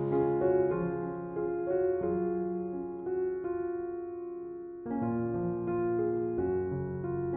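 Background piano music: a slow melody of sustained notes, with one chord held for a few seconds midway.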